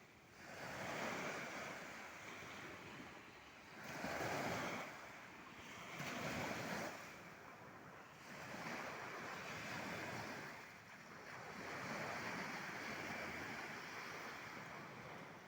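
Small waves of the Sea of Azov breaking and washing up on the beach, each surge swelling and fading every two to three seconds.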